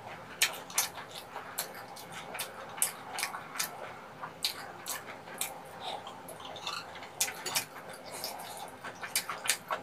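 Close-miked eating sounds: chewy tteokbokki rice cakes being chewed, with sharp, irregular wet mouth clicks one to a few per second, and light taps of chopsticks and a metal spoon against the dish.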